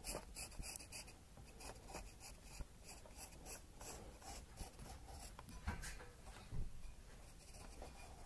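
Faint scratching of a pen on paper: a run of short drawing strokes.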